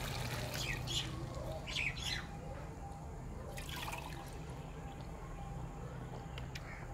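Water pouring from a steel tumbler into a pot of cooking vegetables, ending about a second in. After that, birds chirp in short calls a few times over a low steady hum.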